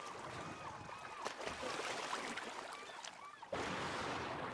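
Seawater lapping and sloshing, with faint gliding whistles over it. About three and a half seconds in, it jumps suddenly to a louder, steady rush of water.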